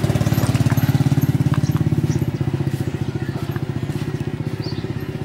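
A small engine running at idle nearby, a steady low chugging with a fast even firing rhythm that eases off a little after about two seconds.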